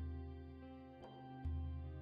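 Slow, soft instrumental background music, with a deep bass note struck about a second and a half in that fades slowly under sustained higher notes.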